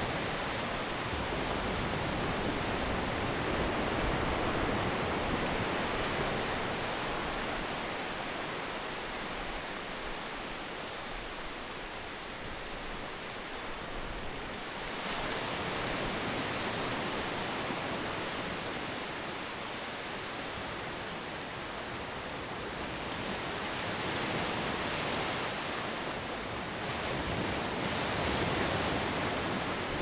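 Sea surf breaking offshore and washing up a flat sandy beach: a steady rushing wash that swells and eases every several seconds, with louder swells about halfway through and near the end.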